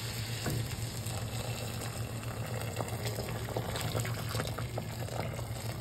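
Hot water poured from a kettle in a steady stream into a pot of browned oxtail and vegetables, splashing into the pan as the liquid fills it.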